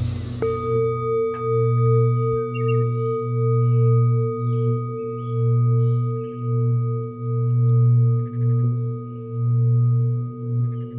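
Ambient breath-hold music: a low drone that swells and fades about every two seconds, under steady higher tones that set in about half a second in, with faint chirps above.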